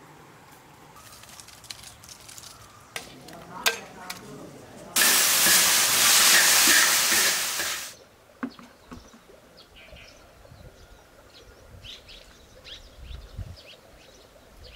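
Water ladled from a bucket and poured over garden plants: a loud, steady splashing rush lasting about three seconds, starting about five seconds in. A few faint knocks come before it and light ticks after.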